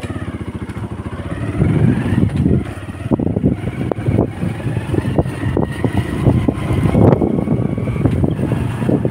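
Motorcycle engine running, heard from the rider's seat: an even pulsing idle for about the first second and a half, then louder and uneven as the bike pulls away and rides along the road.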